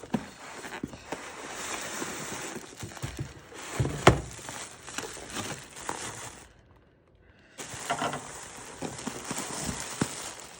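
A mail package being opened by hand: packaging crinkling and rustling with small clicks, a loud knock about four seconds in, and a short pause about six and a half seconds in.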